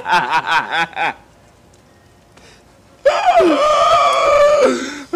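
A man laughing hard in quick bursts that break off about a second in; after a pause, a long, high, wailing laugh that slides down in pitch.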